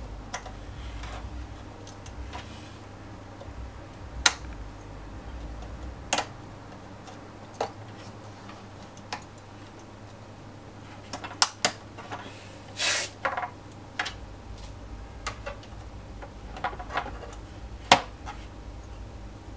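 Scattered sharp clicks and taps of a screwdriver and hard plastic parts as the Xbox One's cooling fan is worked loose, with a short scraping rustle about two-thirds of the way through.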